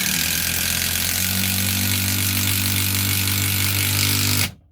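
Cordless brushless impact driver hammering a long coach screw into pre-drilled oak. It is a steady, loud buzzing rattle that cuts off suddenly near the end as the screw seats.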